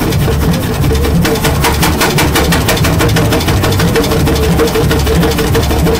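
Avery 20-35 gas tractor's engine idling, with a fast, even beat of firing strokes and mechanical clatter.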